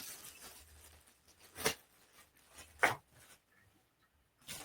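Two short sharp clicks about a second apart, with a fainter one near the end, from a small cardboard lighter box being handled.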